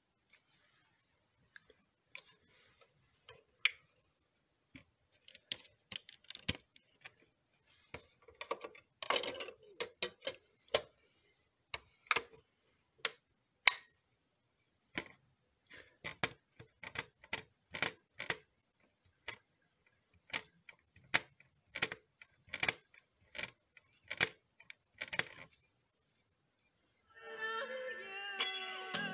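Irregular sharp clicks and taps, at times several a second, from hands handling a CD and CD player. Near the end, music starts playing.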